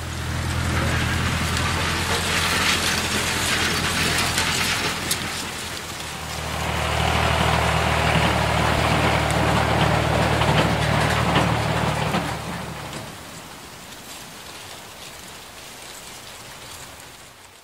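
A large engine running at a steady speed under a loud hissing rush. The sound swells twice, then fades away over the last few seconds.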